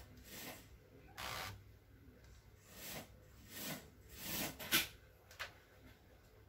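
Hands wiping an LCD panel's glass with a tissue and smoothing a sheet of plastic polarizer film over it: a string of short rustling swishes, with one sharper click about two-thirds of the way through.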